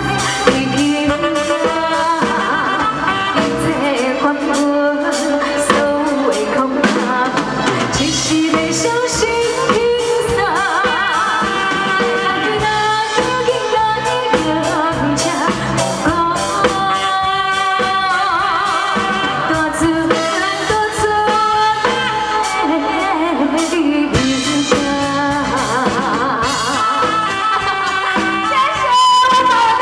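A woman singing through a stage microphone over amplified music with drums, holding long notes with vibrato.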